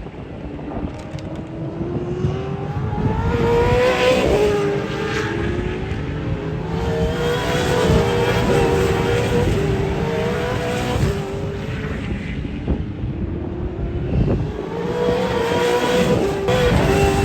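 V8 Supercars racing past trackside, one after another. Their V8 engines rev up and fall back through the gear changes, swelling loudly as each car passes.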